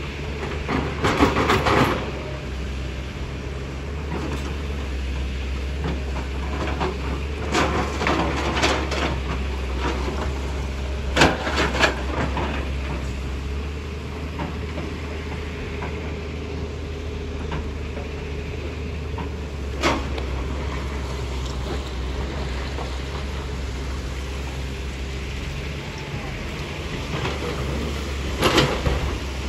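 Tata Hitachi hydraulic excavator's diesel engine running steadily, with short bursts of rock clattering and banging as the bucket digs stone and drops it into a dump truck's steel bed, about five times.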